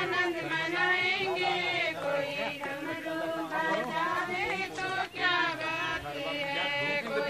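Several voices chanting a Sanskrit mantra in a sing-song tone, with high voices clear above the rest. The chant names the sacred rivers (Godavari and others), the verse recited to sanctify water for puja.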